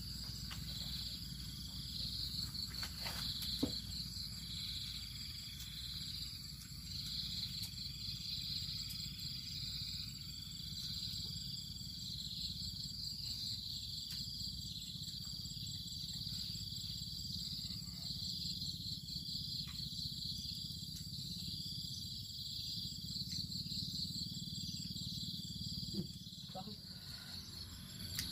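A steady insect chorus trills high and pulses in an even rhythm over a low steady rumble. A few short light clicks come through, the sharpest a few seconds in.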